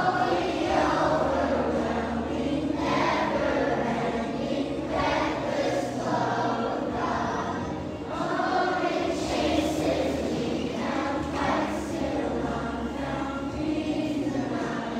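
A large group of children singing an action song together, with accompanying music underneath.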